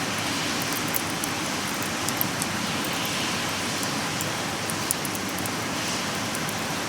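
Wood campfire burning, with a steady hiss and many small, irregular crackles and pops.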